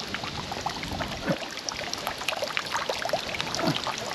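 Water trickling and splashing down a garden pond's rock waterfall: a steady trickle dotted with many small drips and plops.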